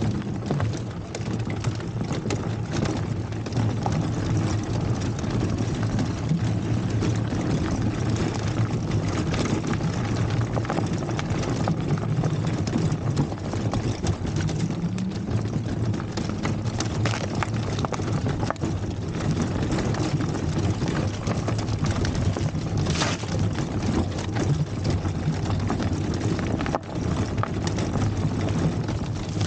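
Electric bike riding over rough dirt ground: a steady low hum and rumble from the bike and its tyres, broken by frequent rattles and knocks as it jolts over the bumps.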